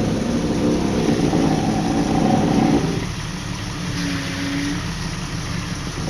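Off-road vehicle's engine running hard under load, then easing off about three seconds in.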